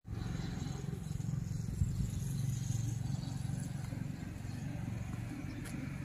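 An engine running steadily with a low, even hum.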